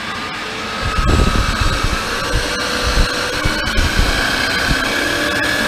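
Startrite H325 mitering band saw running with no cut, its motor and variable-speed gearbox whining as the speed control is wound up toward the top of its 60–410 fpm range. The whine climbs slowly in pitch, and the machine gets louder about a second in.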